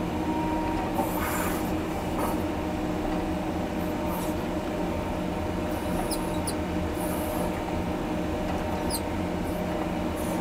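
John Deere 670G motor grader's diesel engine running steadily under load while blading a dirt road, with a few brief high squeaks from the machine.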